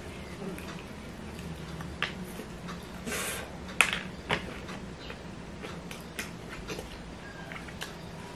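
Close-up eating sounds: fried chicken with a crispy coating being chewed, with scattered crunches and wet mouth clicks, the loudest sharp click a little under four seconds in. A low steady hum runs underneath.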